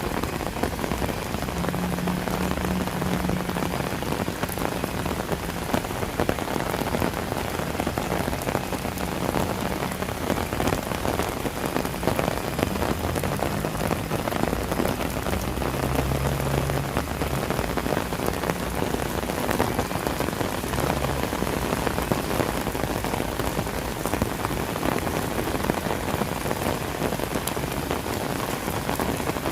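Steady rain falling, a dense continuous wash of drops striking surfaces. A faint low hum comes and goes beneath it.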